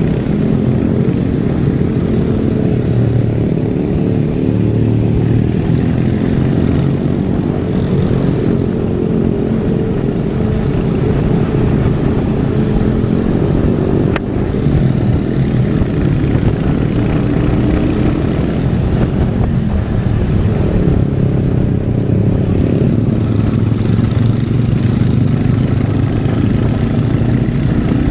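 Royal Enfield Hunter 350's single-cylinder engine and exhaust running steadily under way, the note rising and falling a little with the throttle. There is a brief click about halfway through.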